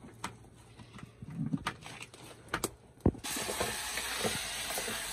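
Firewood sticks clattering and knocking as they are handled at a wood cooking fire on an earth floor, with one louder knock about three seconds in. Right after it, a steady loud hiss starts abruptly.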